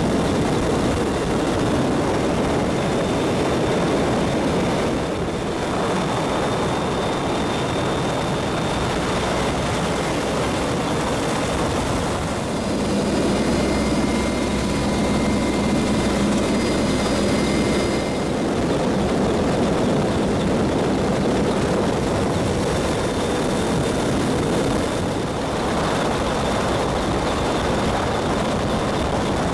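CH-149 Cormorant rescue helicopter's engines and rotor running steadily in a hover, heard from inside the cabin at the open door.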